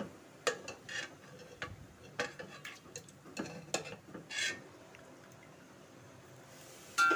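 Metal slotted spoon clinking and scraping against the side of an aluminium pot as it stirs through broth: a string of irregular clinks over the first four or five seconds, then it stops. Plucked-string music starts right at the end.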